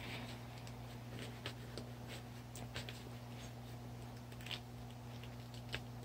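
Faint rustling of a paper towel and a few light clicks as hands handle a battery cable and its heat-shrink tubing, over a steady low hum.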